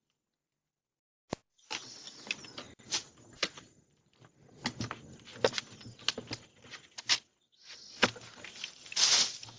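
Irregular rustling and crackling with many sharp snaps and clicks, like leafy branches being handled and broken. The rustling is loudest near the end, with no engine or saw running.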